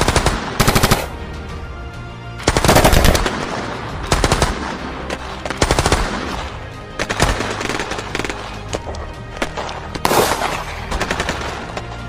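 Automatic gunfire in repeated short bursts of rapid shots, several volleys one after another, the loudest near the start, about three seconds in and about ten seconds in.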